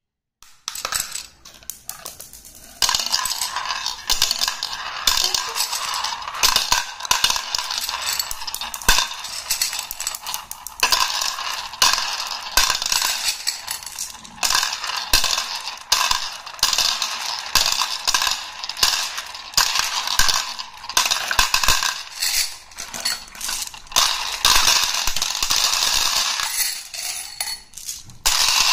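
Glass marbles clicking and clattering against one another and a bowl as they are dropped in and roll around: a dense, continuous run of clicks, quieter for the first few seconds.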